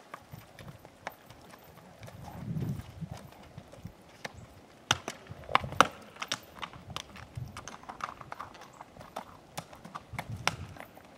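A horse's hooves clacking on flat rock ledges as it climbs a rocky slope under a rider, a run of uneven sharp strikes, loudest and most frequent about halfway through.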